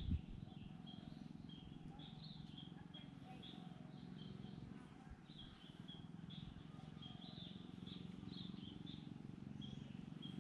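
Small birds chirping faintly in short, high notes, a few a second and irregular, over a steady low rumble.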